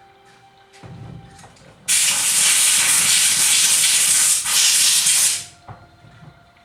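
A loud, steady hiss of a pressurized jet of air or spray, lasting about three and a half seconds and cutting off sharply, with a short low rumble about a second in.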